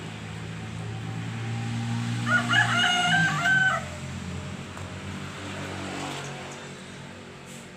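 A rooster crowing once, a stepped call of about a second and a half starting a little over two seconds in, over a steady low hum.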